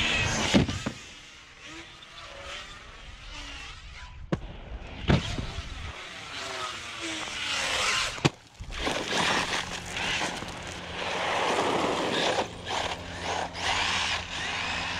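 Traxxas Sledge RC monster truck on 8S power, its 1250 kV brushless motor whining up and down with the throttle while the tyres spin and scrabble on asphalt and grass. The sound breaks off abruptly about eight seconds in and picks up again.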